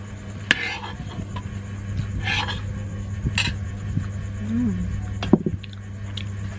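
Close-up eating sounds: a few short clicks and slurps from a spoon and bowl of soupy tofu dish, over a steady low hum.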